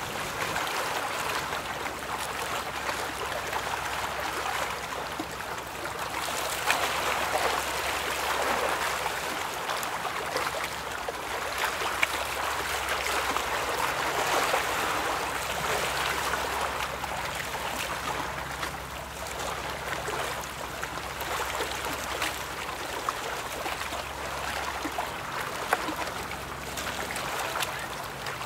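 Steady rush and splash of river water stirred by boats and ship bow waves, with a faint low hum underneath.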